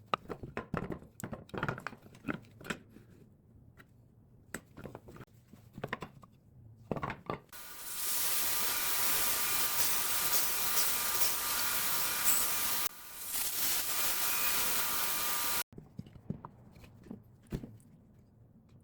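Woodworking sounds: wood pieces and hand tools knocking and clicking, then a loud steady power tool runs for about eight seconds, dipping briefly partway, and stops abruptly, followed by more knocks.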